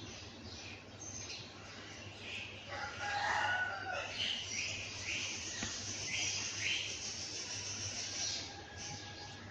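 A rooster crowing once, about three seconds in, over many small birds chirping and singing in quick falling notes.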